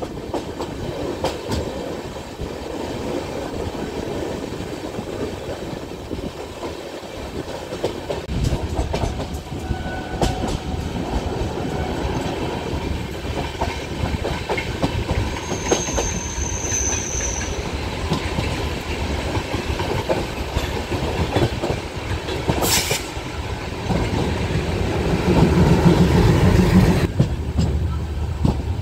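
Konkan Kanya Express passenger train running, its wheels clicking over rail joints. A brief high squeal comes about halfway, a sharp clack a few seconds later, and the running noise grows louder near the end.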